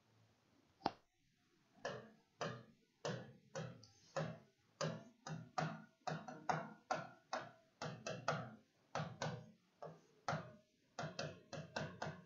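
Marker pen writing on a whiteboard: a sharp click about a second in, then a run of short tapping strokes, two or three a second, as letters and numbers are written.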